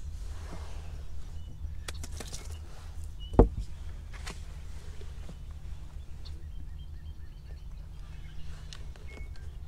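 Outdoor sound on the water from a fishing boat: a steady low rumble, scattered small clicks and pops, and faint bird chirps. One sharp thump about three and a half seconds in is the loudest sound.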